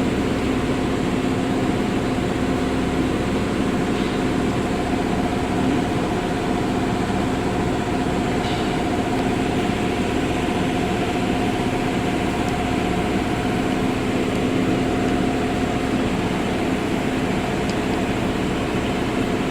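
Ford engine idling steadily with an internal knocking noise, a rattle the mechanic likens to stones.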